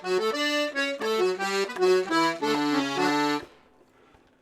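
Paolo Soprani C#/D button accordion with three-voice LMM reeds playing a quick tune, melody over bass-side notes and chords. It stops about three and a half seconds in.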